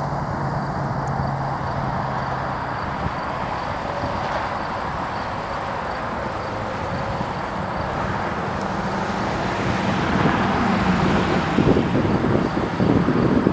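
Steady low drone of a distant boat engine under a wash of outdoor noise; wind buffets the microphone in an uneven rumble over the last few seconds.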